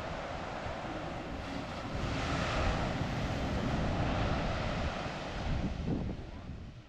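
Wind buffeting the microphone over the wash of ocean surf on the beach, a steady rushing noise with low rumble that swells a couple of seconds in and drops away sharply at the end.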